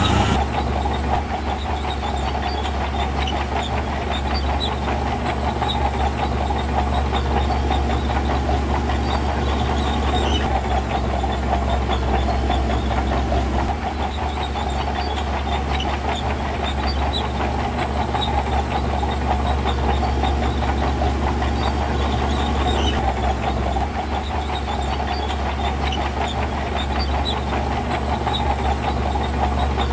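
Heavy diesel earthmoving machinery working: a steady low engine rumble under a dense, rapid metallic clatter.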